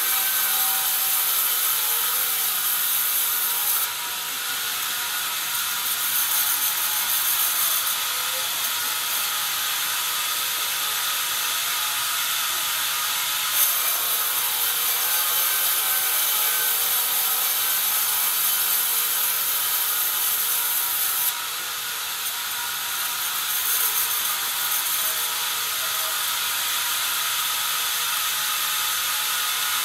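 A sawmill band saw cuts lengthwise through a pine beam: a steady, loud hiss of the blade in the wood with a whining tone. The sound drops and changes abruptly twice, with a single sharp click about midway.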